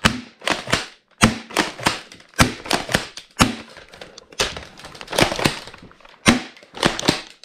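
Airsoft shotgun being handled, a string of sharp clicks and clacks in small clusters about once a second.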